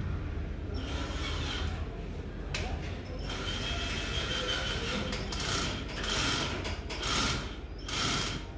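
Cordless drill working in a run of short bursts with a mechanical ratcheting clatter, the bursts coming more often in the second half.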